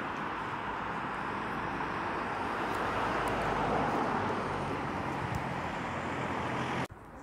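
Road traffic noise: a steady rush of tyres and engines from the road, swelling gently to its loudest about halfway through and then easing.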